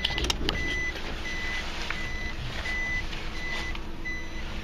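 A vehicle's reverse warning beeper sounding a regular series of short, high, steady beeps, about one every 0.7 s, over a low steady engine hum, as the vehicle backs up. A few clicks come just before the beeping starts.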